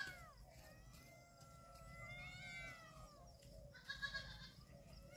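Young goat kids bleating faintly: a long drawn-out call, then a shorter one about four seconds in, and another starting near the end.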